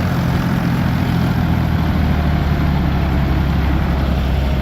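Ford 445D tractor's diesel engine running steadily at a constant engine speed while towing.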